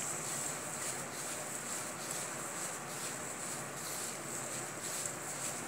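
A hand rubbing and pressing crumbly flour-and-ghee dough in a steel bowl: faint soft rubbing and scraping over a steady hiss.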